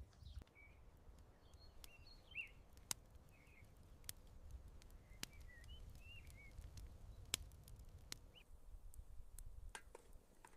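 Small birds chirping faintly, short calls scattered through, over a low background rumble, with a few sharp clicks.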